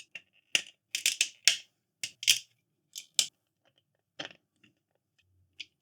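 3D-printed plastic parts clicking and knocking together as they are handled and fitted: about a dozen short, sharp clicks at irregular intervals, thicker in the first half.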